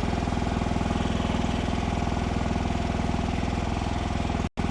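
Mini skid steer's engine running steadily, with a brief dropout near the end.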